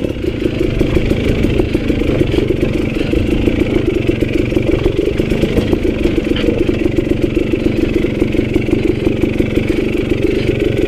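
KTM dirt bike's single-cylinder engine running steadily at low revs, a fast even putter, held back on the throttle as the bike creeps down a steep, loose shale drop.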